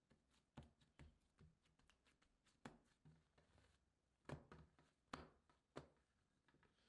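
Light pats and taps of hands pressing soft bread dough flat on a work surface, about eight soft knocks in all, a few of them louder as the dough is lifted, turned over and set back down.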